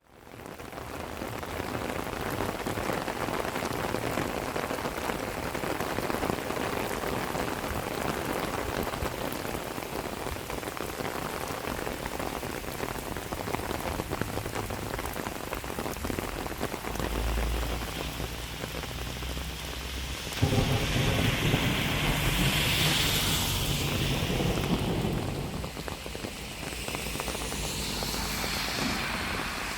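Steady rain falling and splashing on wet ground and puddles. About twenty seconds in, a louder, deeper rushing sound joins it.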